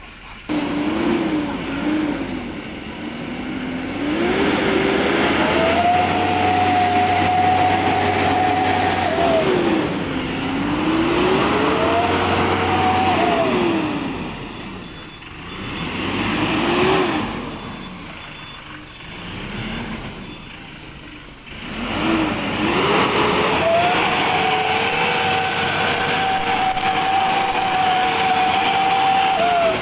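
Mitsubishi Canter light truck's diesel engine revving hard in repeated surges, held at high revs for several seconds at a time and dropping back between, as the bogged-down truck strains to drive out of a muddy rut.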